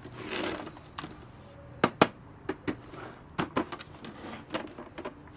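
Plastic moulded socket set case being handled: a faint rustle, then a string of sharp plastic clicks and knocks, the two loudest close together about two seconds in.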